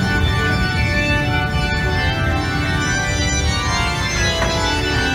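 Organ music playing long held chords that change every second or so, over a steady low rumble from the mine train running along its track.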